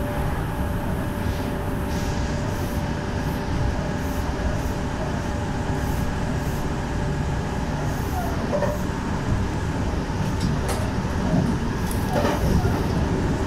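Meitetsu electric train running on the track, heard from the driver's cab: a steady rumble of wheels and running gear, with a steady hum that stops about eight seconds in. Near the end a few sharp clicks come as it runs over points approaching a station.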